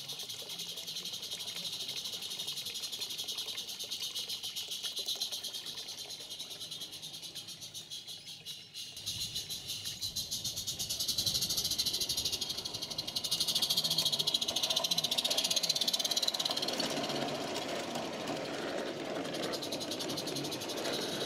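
16mm-scale live-steam model train running on a garden railway: a steady hiss with a fast, even ticking. It grows louder and fuller about halfway through as the train comes close past.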